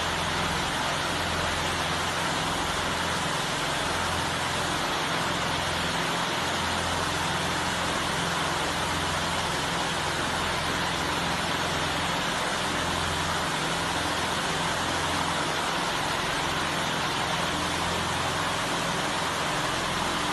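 Steady whirring noise with a low hum from a wall of spinning LED hologram fan displays.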